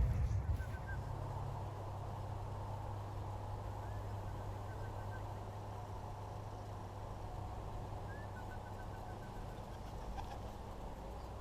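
A steady low rumble, with a small bird's quick run of high chirps heard three times.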